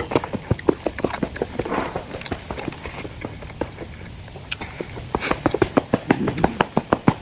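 Close-up eating sounds: wet, irregular clicks and smacks of chewing that quicken to several a second near the end.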